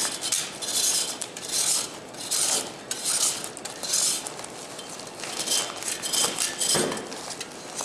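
Surform rasp shaving a hardened plaster cast flat, a rasping scrape with each push, about one stroke every three-quarters of a second.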